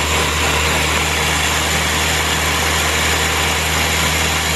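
Ninja blender motor running steadily at full speed, blending a smoothie of almond milk, spinach and berries: a constant whir with a low hum underneath.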